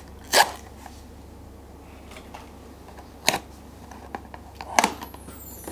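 A small cardboard blind box being handled and opened: three sharp clicks and snaps of card, with a few fainter ticks between them, over a low steady hum.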